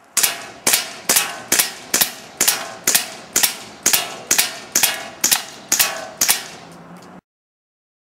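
WE Colt 1911 gas blowback airsoft pistol, charged with propane, fired in a steady string of sharp cracks, about two shots a second, each shot with the snap of the slide cycling.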